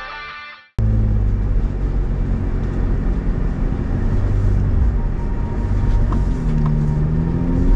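Jeep Wrangler JLU engine running as the Jeep drives slowly along a dirt trail: a steady low drone whose pitch rises and then dips over the last couple of seconds. Guitar music fades out in the first second.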